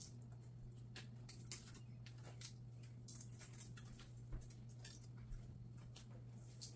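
Faint, irregular clicks and light taps of a kitchen knife and fingers working small pieces of food on a cutting mat, over a steady low hum.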